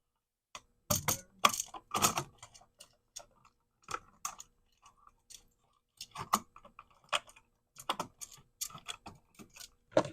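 Irregular small clicks and taps of hands working copper wire hooks onto the terminal screws of a new wall receptacle.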